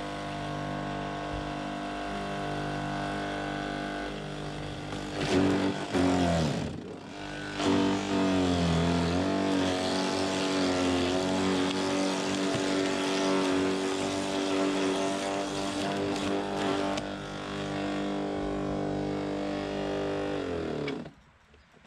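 Garden shredder (wood chipper) running with a steady motor whine, its pitch dropping as branches are fed in and pulled through, about five seconds in and again about eight seconds in, then recovering. The motor stops suddenly near the end.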